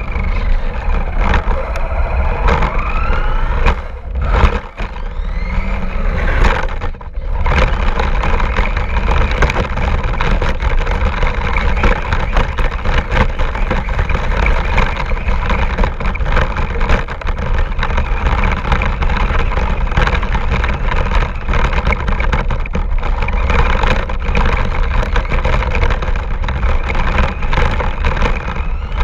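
Radio-controlled car driven over rough ground, recorded on board: its motor whine rises and falls with the throttle over a constant rumble and rattle from the terrain. There are two brief dips in the first few seconds, then a steady run.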